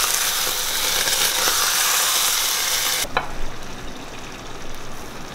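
Food sizzling in a hot frying pan as sauce is poured in; the sizzle cuts off abruptly about three seconds in, leaving quieter sounds with a couple of clicks.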